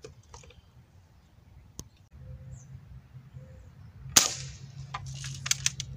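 A single sharp crack of a Crosman M4177 multi-pump pneumatic air rifle firing, about four seconds in. It is followed by a run of quick clicks and rattles as the rifle is worked for the next shot.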